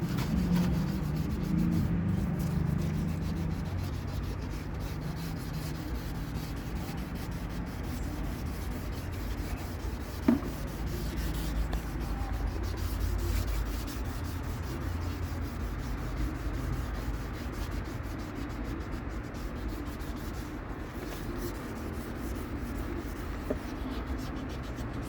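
Hand scuffing of a car bumper with abrasive: a steady rubbing, with one sharp tick about ten seconds in.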